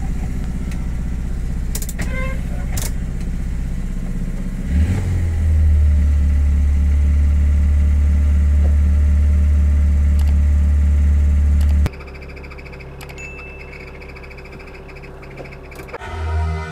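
1997 Suzuki Samurai's engine heard from inside the cab as it drives off cold: a steady low hum that about five seconds in turns much louder and deeper as the engine takes load. About twelve seconds in it drops abruptly to a quieter engine note. A few sharp clicks come in the first three seconds.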